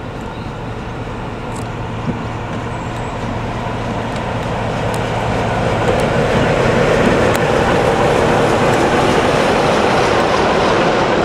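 Diesel locomotive convoy, led by Class 45 'Peak' 45133, approaching and passing close by: the steady engine and running noise grows louder through the first six seconds or so, then holds as the locomotive goes past.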